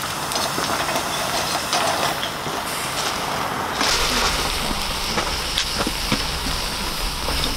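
Clams and shrimp sizzling on a charcoal grill: a steady hiss with scattered sharp pops and crackles. The hiss turns brighter and louder about four seconds in.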